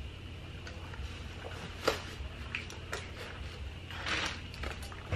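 Handling noise from a handbag's packaging: a few soft clicks, a sharper tap about two seconds in and a short rustle about four seconds in, over a steady low hum.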